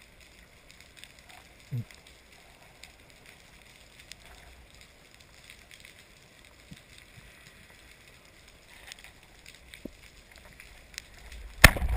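Underwater sound through a camera housing: faint scattered clicks over a low hiss, with a brief low sweep about two seconds in. Near the end a speargun is fired, a single sharp crack, followed by loud low churning noise.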